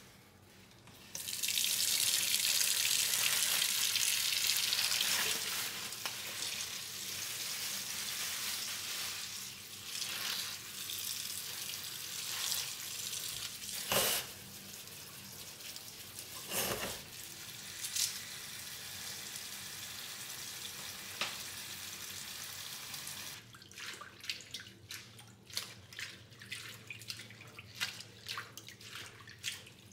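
Kitchen faucet running into a stainless steel bowl in the sink, the spray rinsing spinach leaves, with a few knocks along the way. About 23 seconds in the water stops and hands swish and squeeze the spinach in the bowl, with irregular splashes.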